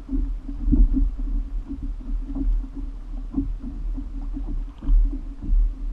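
Choppy water slapping against the hull of a plastic fishing kayak in irregular knocks, about one a second, over a low rumble of wind and water.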